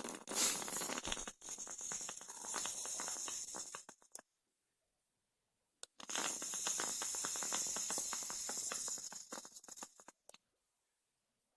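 Air pulled through a flooded, rebuilt Aspire BDC clearomizer head, its e-liquid gurgling and crackling, in two long puffs of about four seconds and three and a half seconds; the head is over-saturated with juice.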